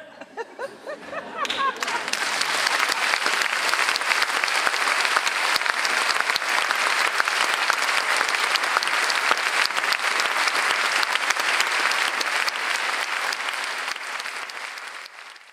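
Theatre audience applauding: scattered claps with a few voices at first, swelling within about two seconds into steady full applause that cuts off suddenly at the end.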